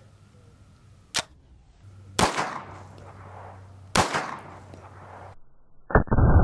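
A compensated 9mm pistol firing 124-grain jacketed hollow-point loads. A sharp click comes about a second in, then two shots under two seconds apart, each with a short echo. A loud, dull thump follows near the end.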